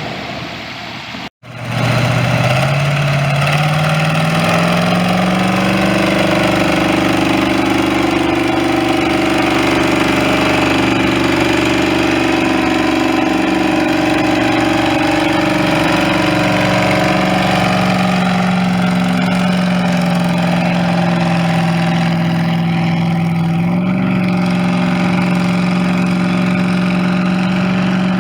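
Tractor engine running loud, revving up over several seconds and then held at a steady high speed, with a slight further rise near the end.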